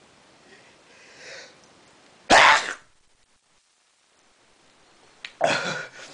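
A man sneezing once, loud and sudden, after a short intake of breath, one sneeze in a sneezing fit. Near the end comes a second, shorter burst of voice.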